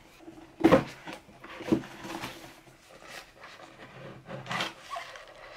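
Small cardboard box being handled and opened: the card rubbing and scraping, with a few louder knocks, the loudest about a second in.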